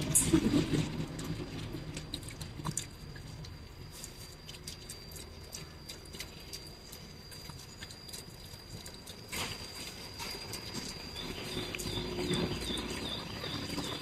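A small poodle chewing a piece of chicken, loudest in the first second, followed by faint scattered clicks. A faint steady high whine runs underneath.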